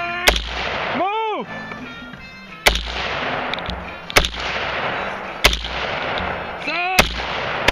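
AR-15 carbine fired in slow, aimed single shots, about six of them roughly a second and a half apart, each sharp crack trailing off in echo. Twice between shots a pitched sound swoops up and falls back down.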